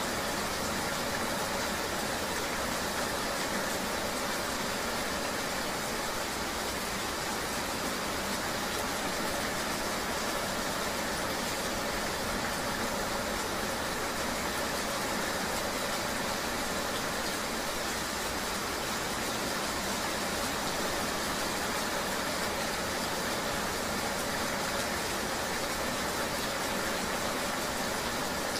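Steady rain ambience with a low, vehicle-like running hum underneath, an even wash of noise that does not change.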